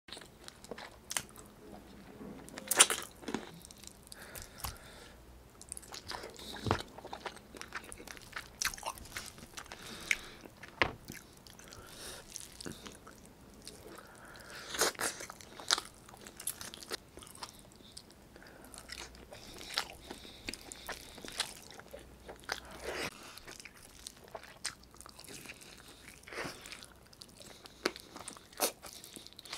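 Close-miked eating: a person biting and chewing pieces of braised chicken adobo pulled off the bone by hand, with mouthfuls of rice. Irregular clicks, snaps and chewing noises come and go, the loudest bites about three and eleven seconds in.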